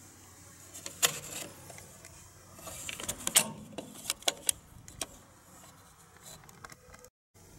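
Clicks and light rattling of M1911-style toy pistol slide parts being handled and set down: a sharp click about a second in, then a run of clicks between about three and five seconds in.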